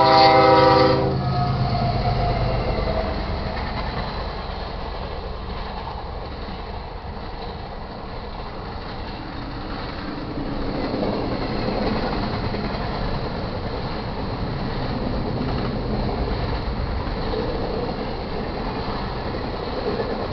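A Canadian Pacific GE ES44AC diesel locomotive's horn sounds a chord for about a second at the start, over the engine's low drone. Then the double-stack container train rolls past with a steady rumble of wheels on rail, which grows louder again about halfway through.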